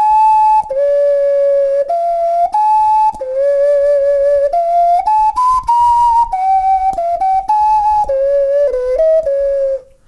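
A 3D-printed 12-hole plastic ocarina played as a simple tune of held, pure-toned notes that step up and down, some wavering slightly in pitch, by an inexperienced player; the tune stops just before the end.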